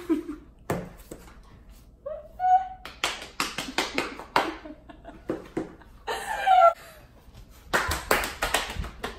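Two quick runs of hand claps or slaps. Short vocal sounds fall between them, one about two seconds in and another past the middle.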